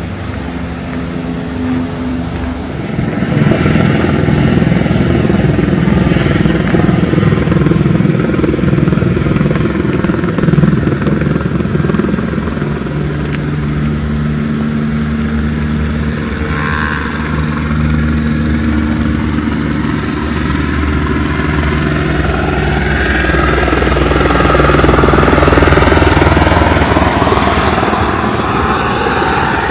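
A motor vehicle engine running close by with a steady hum and a rushing noise, growing louder about three seconds in and loudest near the end.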